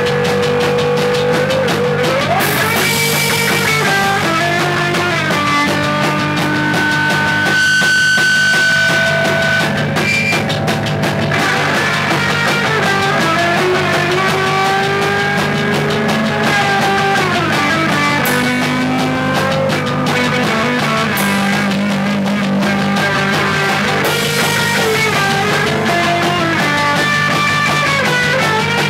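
Live rock band, led by an electric guitar played through an amplifier, with long held notes that slide in pitch over a steady low drone.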